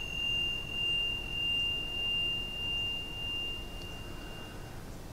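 A single high, pure ringing tone, like a struck chime, that holds steady and dies away about four and a half seconds in, with a fainter higher overtone fading out earlier.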